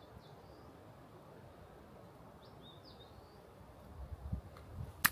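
Quiet woodland background with a few faint, short bird chirps, then low handling rumbles and one sharp click near the end as the clear acrylic box holding the mouse is handled.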